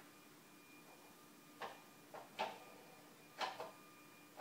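A toddler handling a toy on the floor: about five short light knocks and clacks, starting about a second and a half in, over a faint steady hum.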